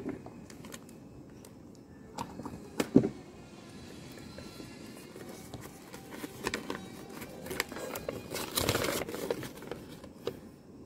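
A few sharp clicks of small plastic parts being handled and set down on a wooden table, the loudest about three seconds in, then the crinkling rustle of a folded paper instruction leaflet being opened out, strongest near the end.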